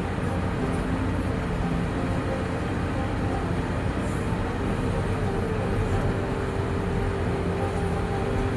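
Excavator's diesel engine running steadily, with a steady tone joining about halfway through.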